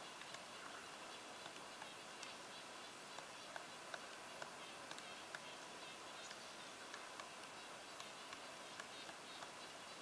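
Pileated woodpecker excavating into a tree trunk: faint, single taps at roughly two a second, unevenly spaced, over a steady hiss.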